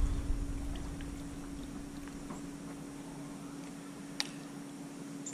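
Faint, steady hum of a running pool pump, with a single sharp click about four seconds in.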